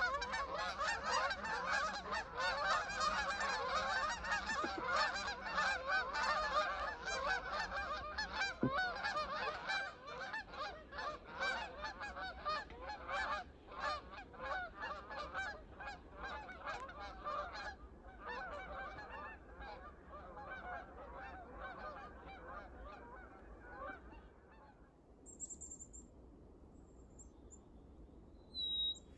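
A large flock of geese honking as it flies over, with many calls overlapping in a continuous chorus that thins and dies away about 25 seconds in. Near the end a small bird gives a few short, high chirps.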